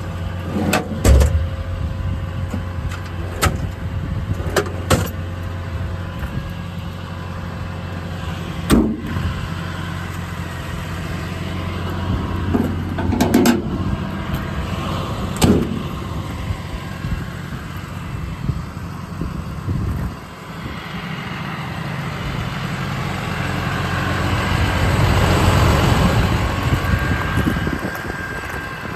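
An engine idling with a steady low hum, broken by several sharp knocks and clunks in the first sixteen seconds. The hum stops about twenty seconds in, and then a rushing noise swells up and fades near the end.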